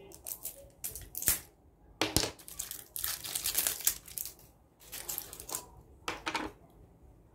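Close, scratchy rasping and crinkling handling noises from a plastic comb and a cosmetic jar being handled: a run of irregular strokes, the longest about a second long a little past the middle.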